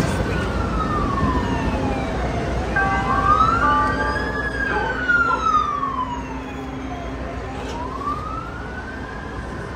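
Emergency vehicle siren wailing, its pitch slowly rising and falling about once every four to five seconds, over a low rumble of city traffic.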